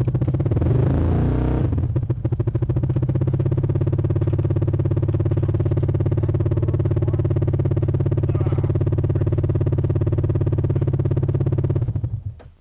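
Yamaha Rhino side-by-side's single-cylinder engine running at a steady pitch, with a rougher, louder burst in the first second and a half. The engine stops abruptly shortly before the end.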